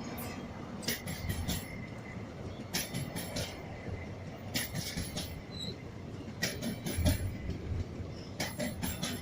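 Railway wagons rolling past slowly, their wheels clicking over rail joints in clusters about every two seconds, over a steady low rumble.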